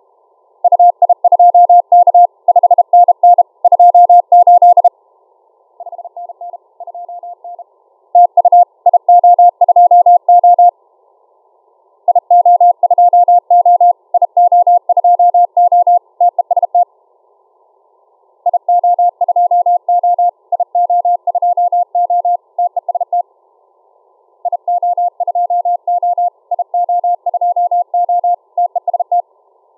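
Morse code received on a shortwave software-defined radio: a single steady mid-pitched tone keyed on and off in quick dots and dashes. It comes in runs of several seconds with short breaks between them, and one run about six seconds in is much weaker than the rest.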